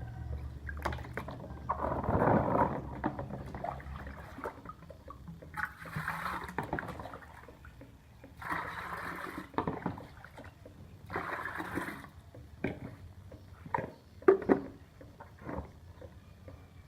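Water mixed with medicine and EM4 being poured into chicken drinkers in four separate pours of about a second each. A few hard knocks follow near the end.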